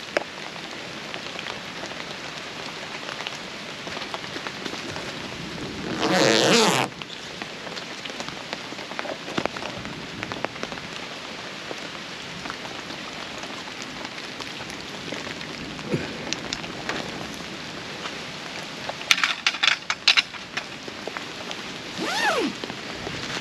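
Steady rain falling after a hailstorm. There is a louder rush of noise about six seconds in, a quick run of sharp knocks near the end, and a short falling squeal just before it ends.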